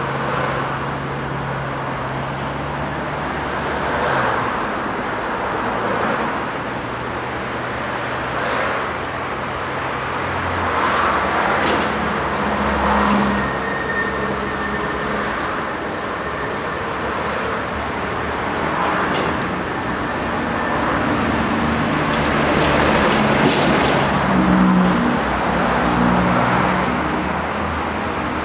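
Steady city road traffic: cars, trucks and buses running, with engine hum that comes and goes and several swells in loudness as vehicles pass.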